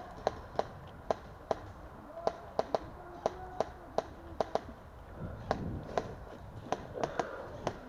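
Scattered sharp cracks of airsoft gunfire and BB hits around a forest bunker, about two a second at irregular intervals, none as loud as the close shots just before.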